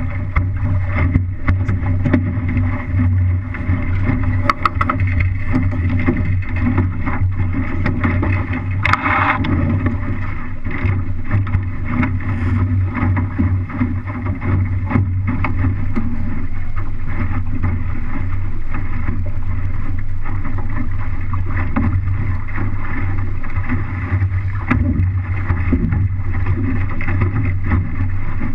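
Water rushing and slapping against the hull of an MC-Scow sailing through chop, with wind buffeting the microphone. It is a steady low rumble broken by frequent short slaps.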